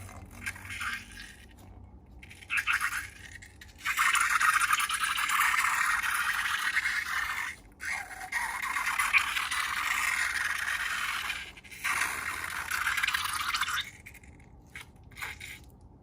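Slime being mixed and worked by hand, a crackly scraping, rattling noise. It comes in short bursts at first, then in longer stretches of a few seconds each with brief pauses.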